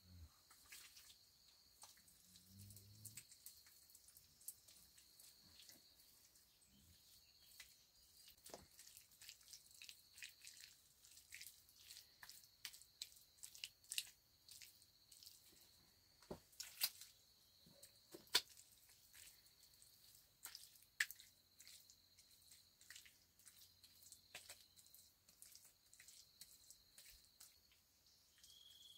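Near silence: scattered faint clicks and ticks at an irregular pace, a few sharper ones in the middle, over a steady high-pitched hum.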